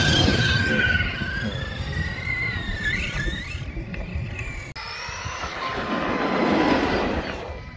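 RC car's electric motor whining, the pitch rising and falling as it is driven hard, over the rumble of its tyres. After a sudden cut, a hiss of tyres on wet asphalt swells and fades as the RC car drives past, with a faint steady motor whine.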